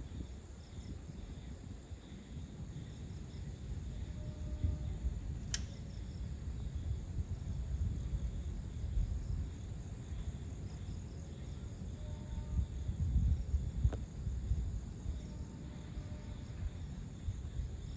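Evening chorus of crickets and other insects, a steady high-pitched trilling, over a louder, fluctuating low rumble. Two sharp clicks, about five and a half and fourteen seconds in.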